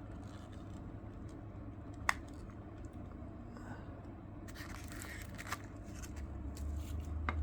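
Packaging being handled and unwrapped: faint crinkling and rustling, with a single sharp tap about two seconds in and another near the end.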